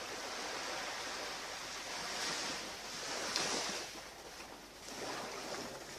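Ocean surf washing onto a beach, a steady rush that swells louder a few seconds in and again near the end.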